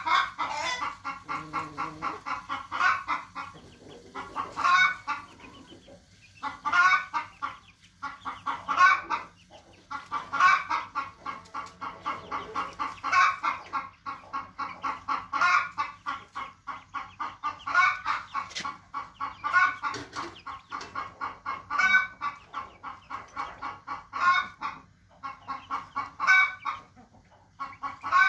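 Chickens clucking: a steady run of quick clucks with a louder call about every two seconds.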